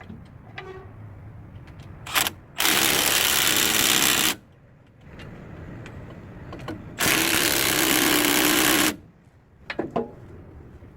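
A power tool runs in two bursts of about two seconds each, with a short blip just before the first. A few clicks follow near the end.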